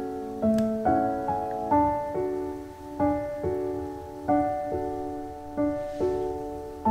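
Gentle background piano music: chords and single notes struck every half second or so, each one fading before the next.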